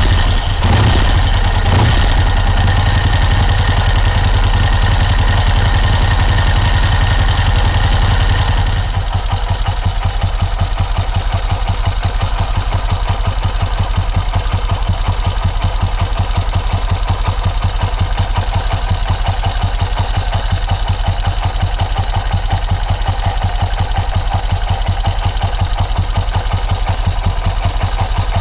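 1951 Vincent Rapide's 998 cc V-twin engine running just after starting. About eight seconds in it drops from a faster idle to a slower, steady idle with an even beat.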